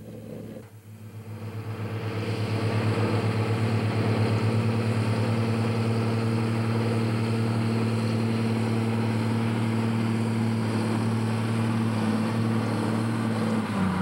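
Large John Deere four-wheel-drive diesel tractor running steadily under load while pulling a disc harrow. It grows louder over the first two seconds, then holds a steady drone.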